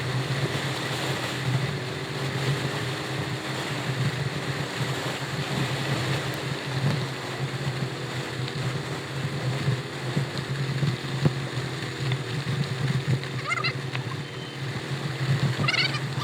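A vehicle engine running at a steady speed under a constant rush of wind and road noise, with a low hum and a slightly wavering higher tone. A few short high chirps come in near the end.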